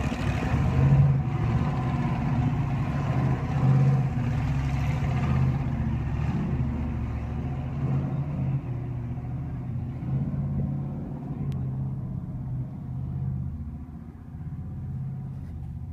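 Modified Jeep Wrangler YJ race car's engine revving in surges as it crawls up a rocky climb, growing fainter as it moves away.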